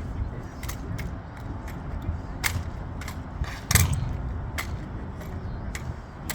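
Drill rifles being slapped, caught and handled in a rifle drill routine: a string of sharp, irregularly spaced claps and knocks, the loudest about four seconds in.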